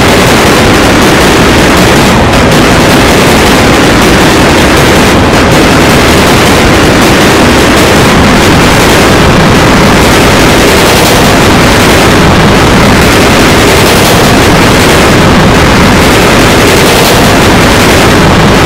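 Heavily distorted, clipped effects-edit audio: a steady, very loud wall of harsh noise with no clear tune or voice.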